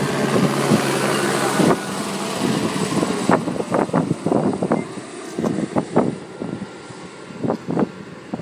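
Steady drone of a propeller aircraft engine passing overhead, with a broad hiss over it. The drone drops away sharply about three seconds in, leaving soft scattered clicks and rustles.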